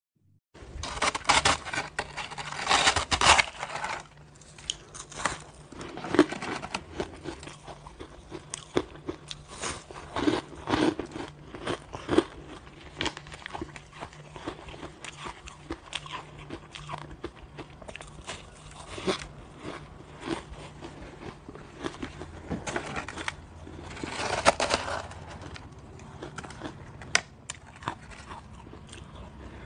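Soft crackly crunching of colored shaved ice as it is bitten and chewed and handfuls are pulled from the tray, in irregular bursts. It is loudest in the first few seconds and again about twenty-four seconds in.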